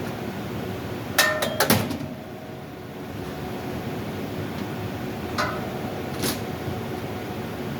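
A quick cluster of about four ringing metal knocks and clanks, then two more single knocks a few seconds later, from tools and parts being handled while an air handler blower is installed. A steady airy hum runs underneath.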